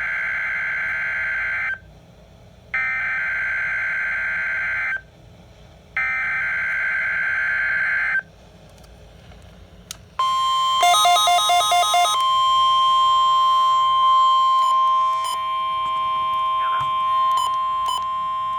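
NOAA Weather Radio Required Weekly Test: three short bursts of buzzing SAME digital header tones, then a steady, piercing 1050 Hz warning alarm tone lasting about eight seconds. A fast run of beeps sits over the first two seconds of the tone.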